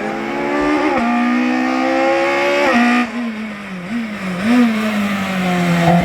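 Race car engine under hard acceleration, its pitch climbing and dropping sharply at two quick upshifts about one and three seconds in. It then goes briefly off and on the throttle in short wavering revs and settles to a steadier, lower note near the end.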